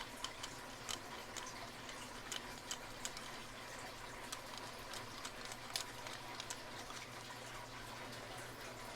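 Faint, irregular small clicks of a pick being turned and worked inside a tubular lock, its pins setting as the tool moves, over a low steady hum.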